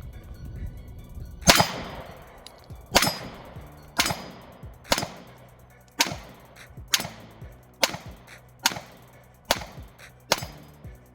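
Glock 43X 9mm pistol with Strike Industries parts firing a full magazine: ten single shots at a steady pace of about one a second, each with a short ringing tail, running through the magazine without a stoppage.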